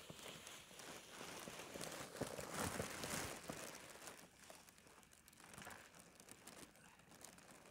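Faint crunching of footsteps in snow on a frozen reservoir, in an uneven walking rhythm that is loudest about two to three seconds in and fades after that.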